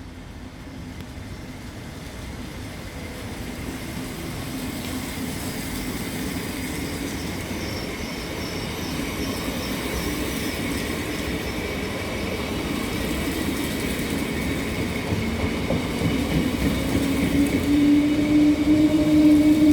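A train approaching and growing steadily louder: rail and wheel rumble with a few steady humming tones from the locomotive.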